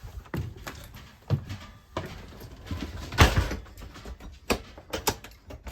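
Handling noise from a phone being carried: a string of irregular knocks and clicks with a louder rushing scrape about three seconds in.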